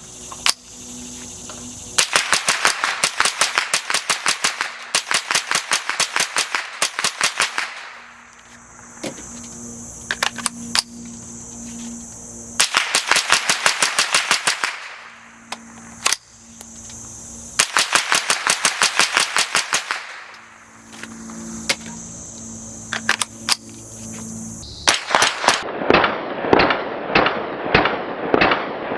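Suppressed .22 LR semi-automatic rifle firing in fast strings of shots, about four or five a second, with short pauses between the strings.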